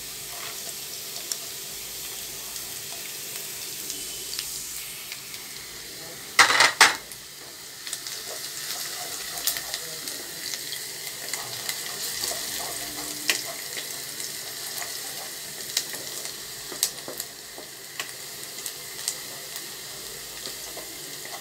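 Chopped onion and garlic sizzling in hot oil over a medium-high gas flame, with a wooden spatula stirring through the pan and making small scattered clicks. There is one brief, louder noise about six and a half seconds in.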